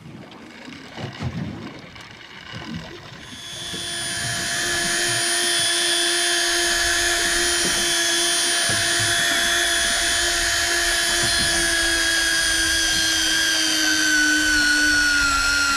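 Electric fishing reel's motor whining steadily as it winds line, starting about three seconds in and dipping slightly in pitch over the last couple of seconds.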